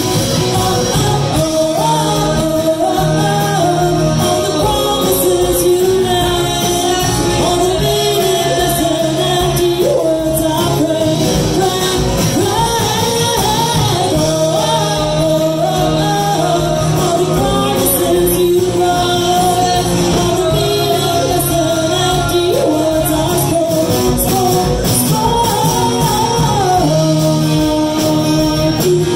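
Live band playing a song: a woman sings lead through a microphone over electric guitar and drums.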